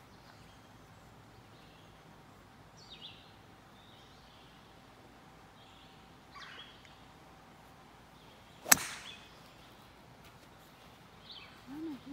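Golf driver striking a ball off the tee: one sharp crack about nine seconds in. Birds chirp a few times before it.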